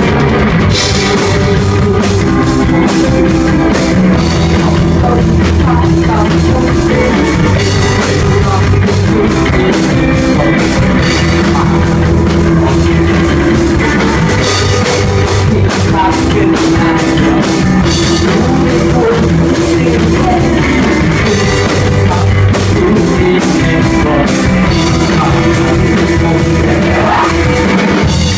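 Rock band playing live with a full drum kit, loud and dense with no breaks.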